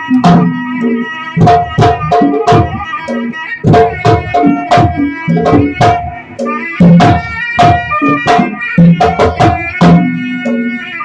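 Traditional percussion music: hand-drum strokes in a quick, irregular pattern over steady ringing metal tones.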